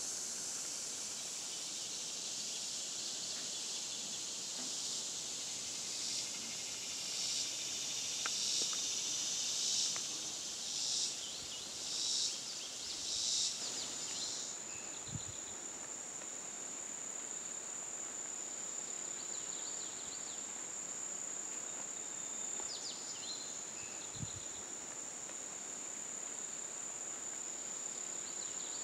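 Summer insects singing: a high buzz that swells and fades about once a second, giving way about halfway through to a steady high-pitched trill, with a few short chirps near the end.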